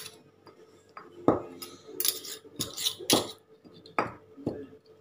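Stone pestle knocking into a stone mortar, with a metal spoon clinking against it, as a child pounds in about seven uneven strokes.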